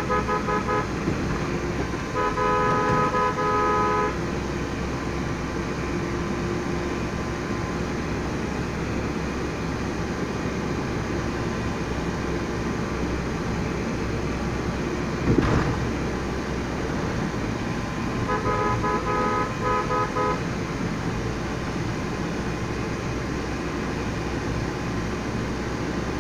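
Steady road and engine noise heard from inside a moving car's cabin, with a car horn honking in short repeated beeps near the start, a couple of seconds in and again about three quarters of the way through. A single thump about halfway through is the loudest moment.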